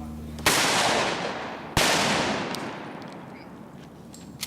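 Two shotgun blasts from a Mossberg pump-action firing slugs, a little over a second apart, each trailing off in a long echo. A short sharp click comes near the end.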